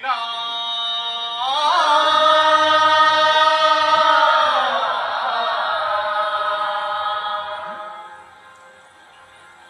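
A male singer holds one long chanted note, and a fuller, louder sound swells in under it after about a second and a half. The pitch slides down around halfway through, and the sound fades away near the end.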